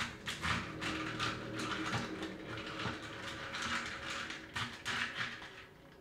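A spoon stirring a drink in a cup, with quick repeated scraping and clinking strokes about three times a second that stop near the end.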